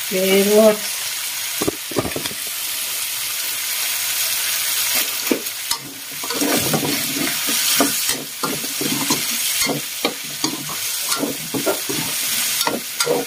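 Pork, chicken, potato and carrot sizzling in oil in a wok, with a utensil stirring and scraping the pan in quick repeated strokes from about six seconds in.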